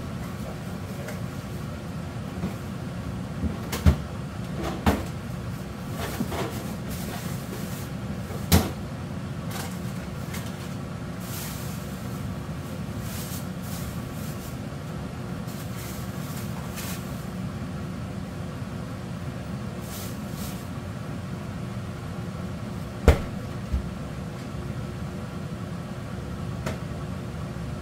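Large pot of chicken baeksuk at a rolling boil, bubbling steadily. A few sharp knocks stand out, the loudest about four, eight and a half and twenty-three seconds in.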